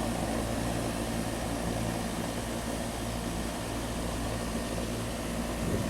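Air conditioner running steadily just after being switched back on: a low, even hum from the compressor and fan while the low-side gas pressure is measured on a unit low on R22 refrigerant.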